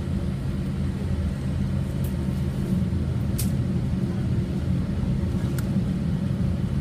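Steady low rumble of a Boeing 787-8 jet airliner, holding an even level, with a few light clicks.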